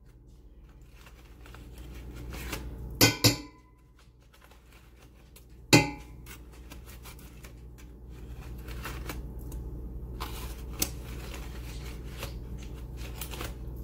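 A spoon scraping soft roasted acorn squash flesh out of its skin, with aluminium foil crinkling and a few sharp clinks of the spoon against the squash and foil.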